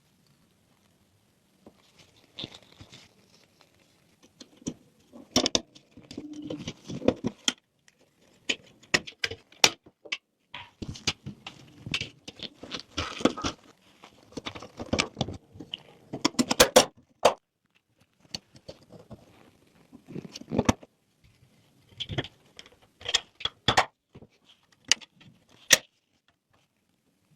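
Irregular small clicks, taps and light rattles of hard small parts being handled, in uneven clusters with short pauses between them.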